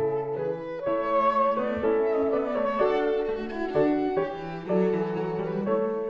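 Live chamber music from a piano trio: cello, violin and piano playing together in sustained, shifting notes.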